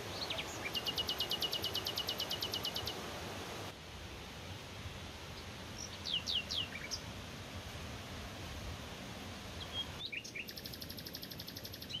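Songbirds singing over the steady rush of a mountain stream: a fast trill of about ten notes a second near the start and again near the end, with a few quick falling whistles in between.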